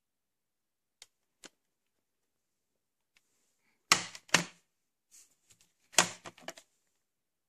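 VHS tape and its plastic case being handled: two light clicks, then two sharp clacks about four seconds in and a quick rattling clatter about six seconds in.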